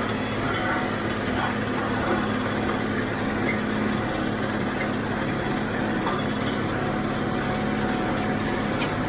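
John Deere 5055D tractor's three-cylinder diesel engine running at a steady speed with an even hum.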